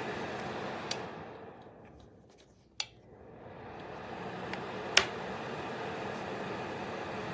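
Steady fan hiss of a small ceramic space heater that dies away almost to nothing and builds back up within about two seconds. Three sharp clicks sound, the loudest about five seconds in.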